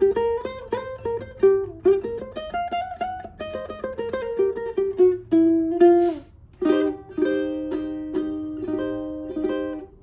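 Solid koa tenor ukulele being played: a quick plucked melody of single notes, then, about two-thirds of the way in, repeated strummed chords about two a second.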